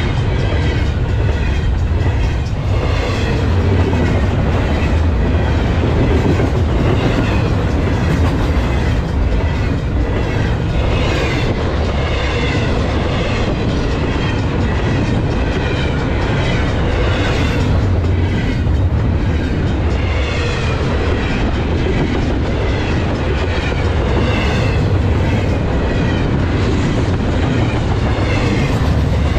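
Double-stack intermodal freight cars rolling past with a steady low rumble and wheel clatter over the rails, while the crossing's mechanical bell dings over and over.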